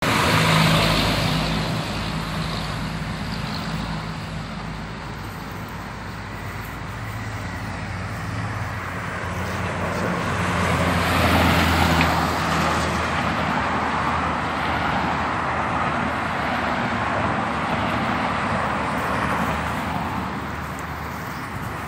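Road traffic going by: a steady rush of passing vehicles with a low engine hum, swelling loudest about halfway through as a vehicle passes close.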